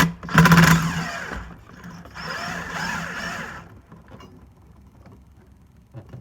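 Power tool driving a 7/16 deep socket on the nut of a turbo downpipe's V-band clamp, loosening it. It runs in two bursts, the first short and loudest, the second longer, with the pitch sliding up and down as it spins.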